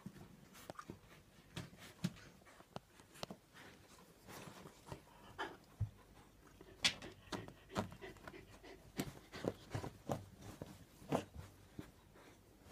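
Dog nesting before whelping: paws scratching and rustling fleece and cotton blankets in irregular scrapes, with some panting.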